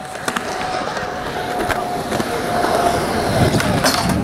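Skateboard wheels rolling on smooth concrete, a steady hum that grows louder in the second half, with a few sharp clicks and a harder clack about four seconds in as the board meets a metal rail for a slide.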